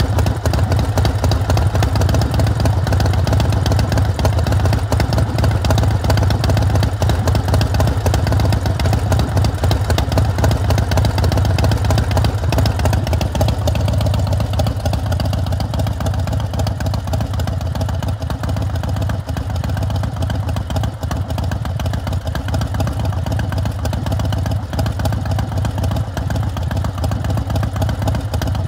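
Carbureted 117 cubic inch S&S V-twin of a Big Dog K9 chopper, breathing through a SuperTrapp exhaust, idling steadily with an even low rumble. It drops a little in level from about halfway.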